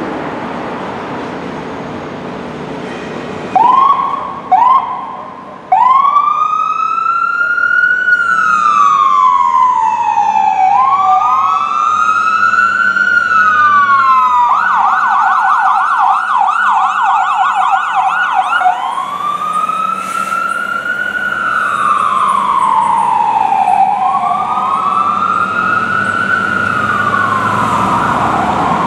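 Fire engine siren on a 2007 Spartan Gladiator pumper running lights and sirens: two short whoops about four seconds in, then a slow wail rising and falling. Midway the siren switches to a fast yelp for about four seconds, then goes back to the wail, with the truck's engine running underneath.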